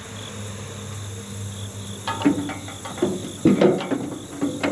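Hand scraper scraping and knocking against a John Deere 4755 tractor's radiator core, a run of scrapes and clicks starting about two seconds in, to remove excess paint stuck on it. Insects chirr steadily behind.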